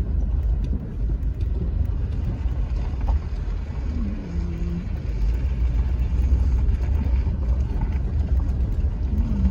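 Car rolling slowly along a rough slag driveway, heard from inside the cabin: a low, steady rumble of engine and tyres.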